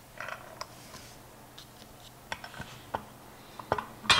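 Small suspension parts being handled at a workbench: a soft rustle early on, then a string of short, light metallic clicks and taps, the loudest near the end.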